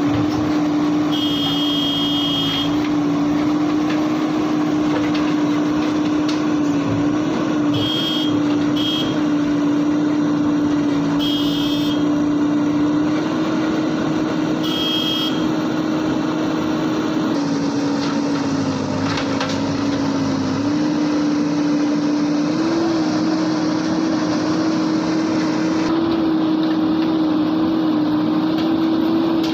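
JCB backhoe loader's diesel engine running steadily at working revs, its hum dipping and rising slightly with load. A few short high electronic beeps sound over it in the first half.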